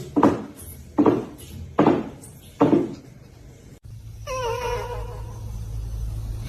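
Cat meowing: four short, loud calls in quick succession, then after a brief break one long, drawn-out call held at a steady pitch.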